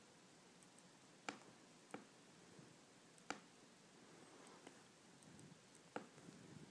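Four faint clicks of a laptop trackpad, spread unevenly against near silence.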